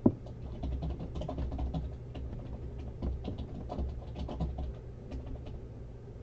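Typing on a computer keyboard: irregular key clicks, with one louder knock right at the start, over a low steady hum.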